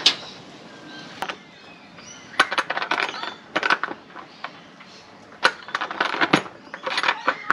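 Pliers and a socket tool clinking against steel bolts and nylon lock nuts as the nuts are tightened on the bolts set into a plastic recovery board. The sound is irregular sharp metallic clicks, some single and some in quick runs.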